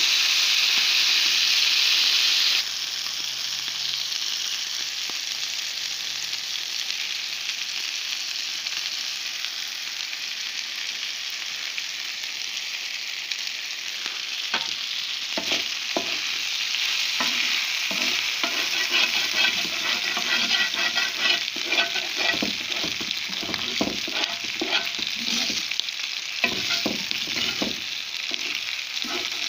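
Chopped meat and merguez sausages sizzling on a hot flat griddle, a steady frying hiss that drops suddenly a couple of seconds in. From about halfway, quick scraping and tapping of a utensil turning the meat on the griddle joins the sizzle.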